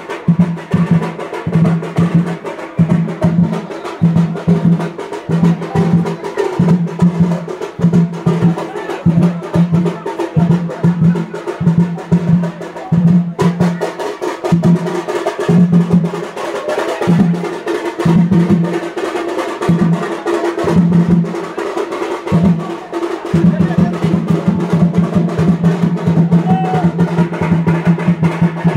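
Drums played in a rhythm: a pattern of repeated pitched strokes that grows looser and more spaced out about halfway through, then breaks into a fast, continuous roll near the end.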